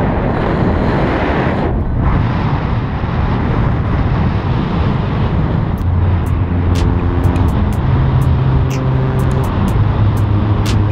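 Steady, loud wind rushing over a camera microphone during paraglider flight. About halfway through, music comes in with low bass notes and a ticking beat.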